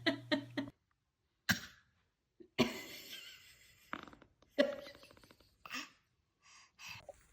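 A quick run of short baby sounds, mostly small fart noises with a few brief baby vocal sounds. Each one is cut off abruptly by a dead silence, several in a row.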